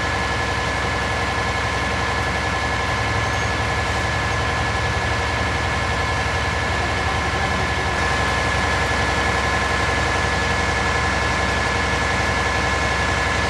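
Fire engine idling steadily: an even low rumble with a steady high-pitched whine over it.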